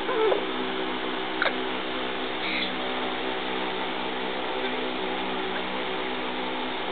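Congo African grey parrot giving one short falling squeak just after the start and a sharp click about a second and a half in, with a faint high chirp a second later, over a steady background hum.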